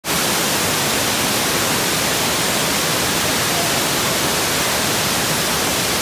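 Broad cascading waterfall pouring over many rock ledges: a loud, steady, even rush of falling water.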